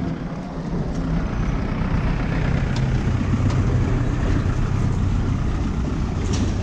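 Steady low rumble of a motor vehicle running, taking over from fading music about a second in.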